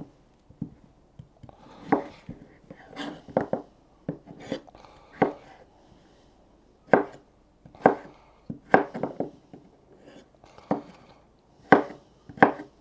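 Kitchen knife cutting raw potatoes into thick sticks: about a dozen separate cuts, roughly one a second, with a short pause near the middle.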